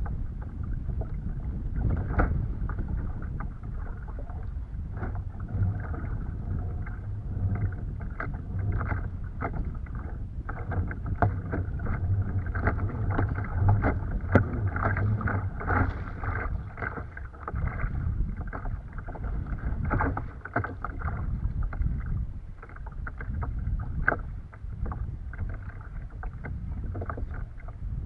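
Choppy waves slapping and splashing against a plastic kayak hull in a steady run of short hits, over a constant low rumble of wind on the microphone.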